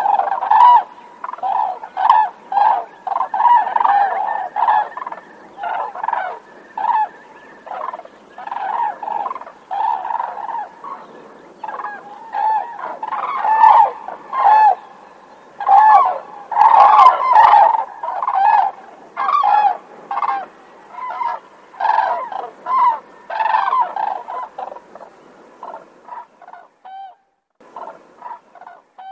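Cranes calling: a long run of short, pitched calls, one or two a second and overlapping in places, that thins out near the end.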